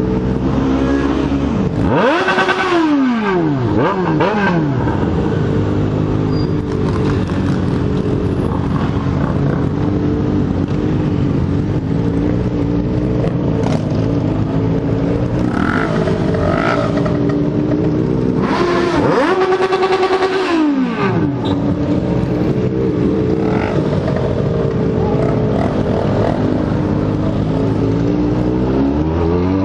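Yamaha XJ6 N inline-four motorcycle engine running steadily at low revs. It is revved hard twice, about two seconds in and again near the twenty-second mark, the pitch jumping up and sliding back down each time, and revs start climbing again near the end.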